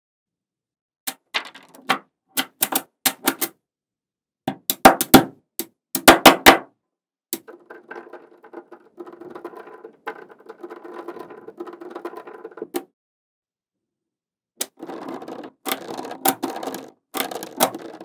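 Magnetic balls clicking sharply as they snap together, in scattered single and quick-double clicks over the first half. This gives way to several seconds of dense rattling clatter as the balls knock together, then, after a short pause, more clattering and clicks near the end.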